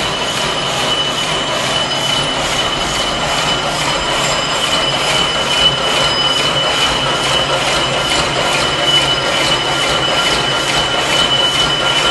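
Barbed wire making machine running steadily as it twists and barbs steel wire: a continuous metallic clatter with a regular beat of a few strokes a second and a steady high squeal.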